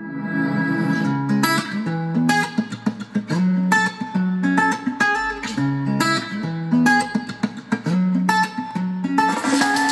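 Guitar music played through an iGear Delight budget Bluetooth soundbar as a sound test: a plucked guitar melody over lower bass notes.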